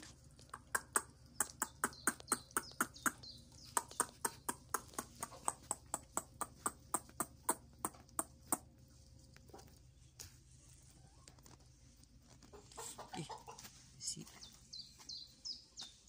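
Hens pecking at feed on the coop floor: a run of sharp taps, about three a second, that stops about halfway through. Later come soft chicken calls and quick high bird chirps.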